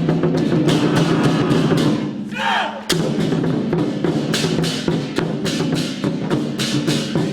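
Lion dance percussion band, drum with cymbals and gong, playing a fast steady beat with cymbal clashes several times a second. About two seconds in the playing drops out for under a second while a falling tone sounds, then comes back in with a sharp strike.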